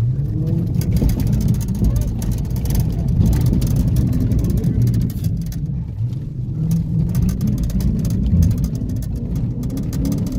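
Chrysler 300's engine running hard, heard from inside the cabin, as the car spins donuts on loose dirt. The tyres scrabble and loose dirt crackles against the car.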